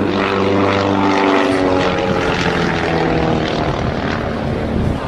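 Propeller airplane engine running loud as the aircraft flies past, its pitch slowly falling.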